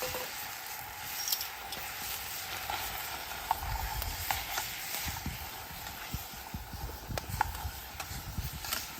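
Food sizzling in a pan over a campfire stand, with scattered small pops and clicks under a low, uneven rumble.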